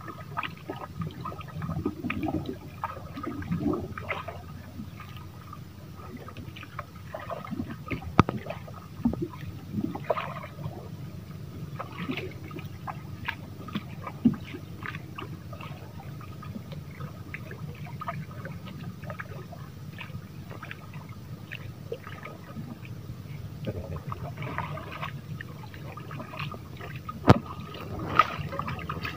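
Water sloshing and gurgling around a small boat, with scattered knocks and splashes over a steady low hum, and one sharp knock near the end.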